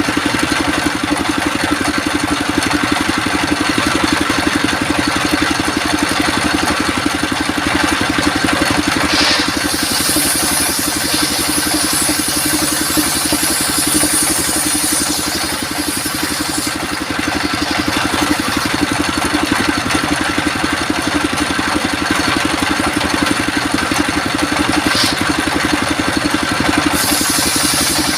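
Engine-driven circular sawmill running steadily, with a harsher high hiss for several seconds in the middle and again near the end as the blade cuts through coconut wood.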